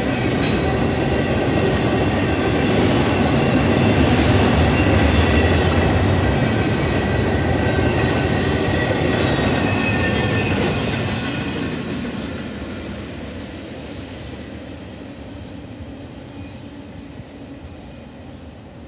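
Intermodal train's double-stack container cars rolling past, steel wheels running on the rails with some thin wheel squeal. About eleven seconds in the sound starts to fade as the end of the train passes and draws away.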